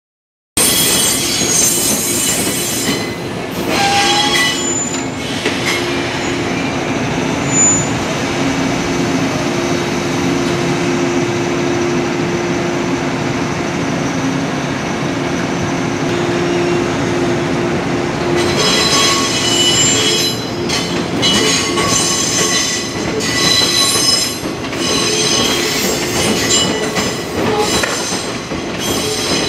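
JR East 185 series electric multiple unit running through yard tracks, its wheels squealing on the curves and points with high-pitched squeals in the first few seconds and again through the last third. A steady hum runs under the middle stretch.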